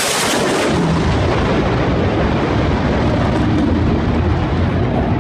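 Fighter jet flying past low: loud jet engine noise, with a hissing edge in the first second giving way to a deep, steady rumble.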